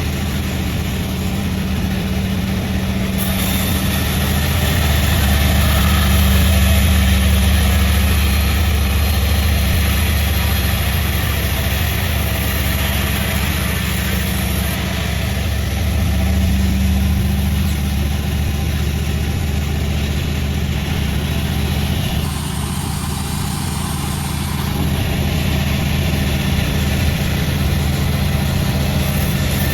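Sawmill machinery running steadily, a continuous low engine drone whose level swells a little a few times.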